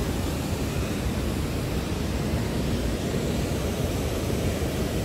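Steady, unbroken roar of fast, churning white-water in the Niagara River below the falls.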